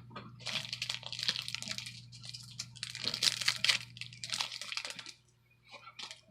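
Brush-set packaging being unwrapped by hand: irregular crinkling and rustling for about five seconds, dying away near the end with a few small ticks.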